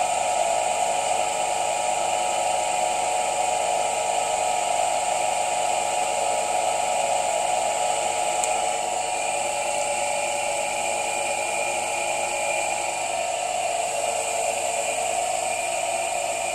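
Induction motor driving a generator, running steadily with an even high whine.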